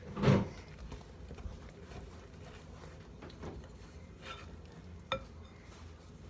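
Wooden spoon stirring thick brownie batter in a mixing bowl: soft, irregular scraping and faint knocks. There is a brief louder thump just after the start and a sharp click of the spoon about five seconds in.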